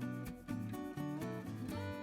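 Background music with plucked acoustic guitar, notes changing several times a second.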